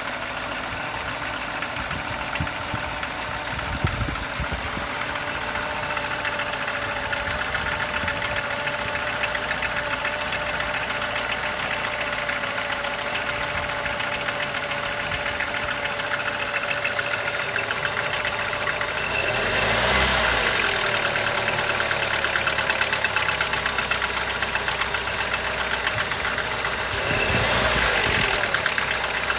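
BMW M43 1.6 four-cylinder engine idling with a persistent knock that remains after an overhaul with new bearing shells and piston rings. The revs are raised briefly twice, about two-thirds of the way in and again near the end.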